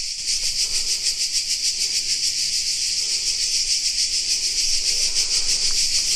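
A loud, steady chorus of cicadas buzzing, high-pitched and throbbing with a fast, even pulse.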